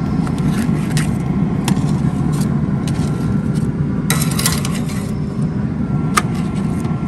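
Metal clicks and scrapes of steaks being lifted off a pellet grill's grate, with a louder cluster about four seconds in, over a steady low rumble.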